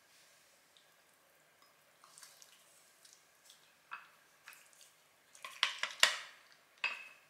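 Wooden chopsticks and a frying pan lightly clacking against a ceramic plate while creamy udon noodles are slid out of the pan, with soft wet sounds of the cream sauce. A few scattered taps at first, then a quick cluster of louder clacks about five and a half to six seconds in, and one more near the end.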